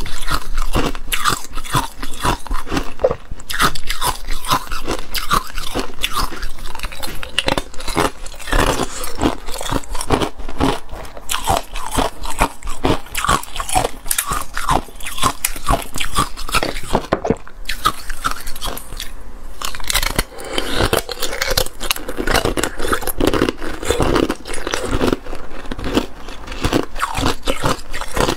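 Ice cubes being bitten and chewed, a continuous run of sharp cracks and crunches between the teeth.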